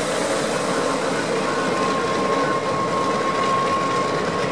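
Lockheed Super Constellation's four Wright R-3350 radial piston engines and propellers running steadily as the airliner taxis, with a thin steady whine over the drone.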